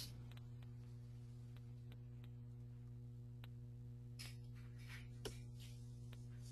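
Near silence on an open audio line: a steady low electrical hum, with faint scattered clicks and a slightly louder click a little past the middle.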